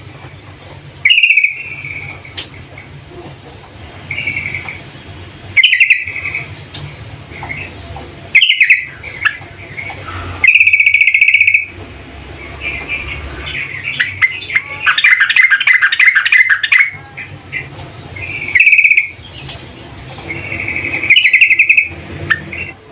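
Yellow-vented bulbul (trucukan) calling: short, loud bubbly phrases every two to four seconds, with a longer rapid chattering run in the middle. The recording is billed as a female calling a male.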